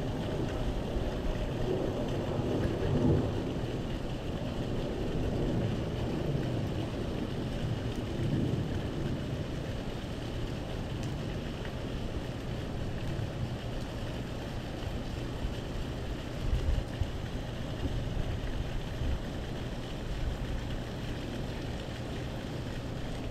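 Steady outdoor noise of wind buffeting the microphone, with irregular low rumbling swells and a faint steady hiss above it.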